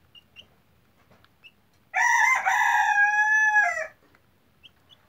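A young Serama bantam chicken crowing: one long, high-pitched call about two seconds in that lasts nearly two seconds, with a few faint ticks before it.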